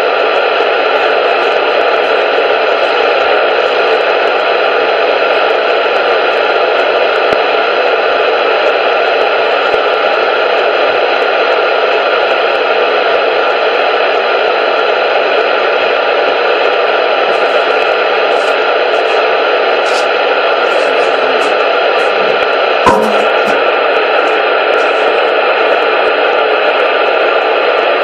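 Loud, steady static hiss like an untuned radio, with a single brief click about 23 seconds in.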